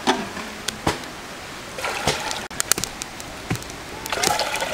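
Water scooped with an enamel pot from a metal milk can, with several sharp knocks of the pot against the can, then poured with a splashing rush into a samovar around its chimney near the end.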